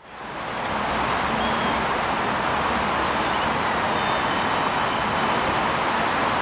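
Steady city street traffic noise, an even wash of passing vehicles, fading in just after the start and holding constant.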